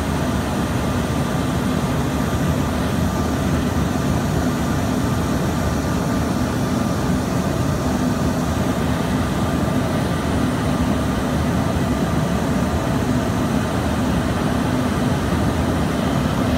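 Steady cabin noise inside an Embraer ERJ-145 in the climb: the rumble of its rear-mounted Rolls-Royce AE 3007 turbofans and the rushing air, with a low steady hum and a faint higher whine.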